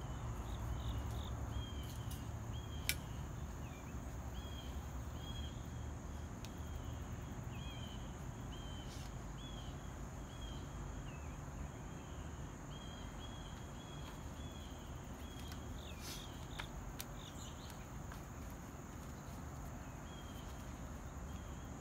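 Insects singing outdoors: a steady high buzz with a short chirp repeated about once a second, over a low steady rumble. A few faint clicks come through.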